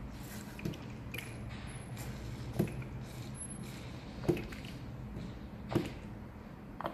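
Plastic ink bottle held upside down in a DTG printer's black ink tank and squeezed to fill it, with a short soft click from the bottle about every second and a half.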